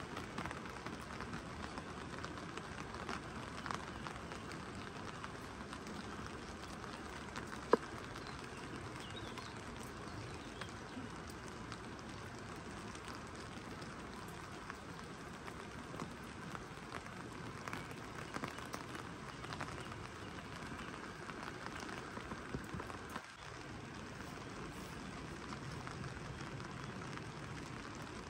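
Steady rain falling, an even hiss with scattered drop ticks, and one sharp, much louder click about eight seconds in.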